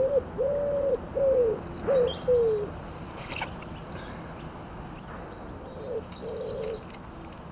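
A pigeon cooing: a repeated run of low coos over the first three seconds, then two more coos near the end, with small birds chirping faintly.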